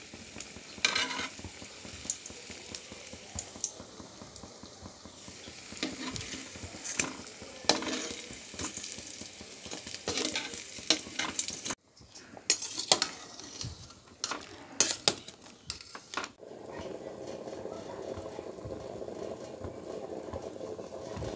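Dough balls deep-frying in hot oil in a metal pan, sizzling steadily, with a metal slotted spoon clicking and scraping against the pan as they are stirred and turned. About three-quarters of the way through, the clicks stop and a steadier, duller noise takes over.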